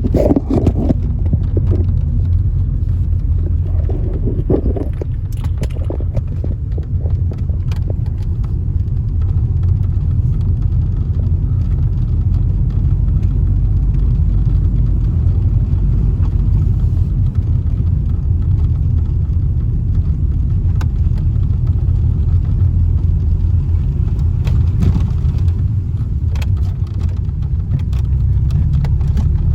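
A car driving, with a steady low rumble of engine and road noise and a few faint clicks or rattles.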